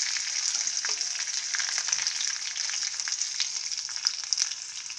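Curry leaves, dried red chillies, ginger, mustard seeds and urad dal sizzling in hot oil in a nonstick kadai: a steady sizzle with many small scattered pops and crackles.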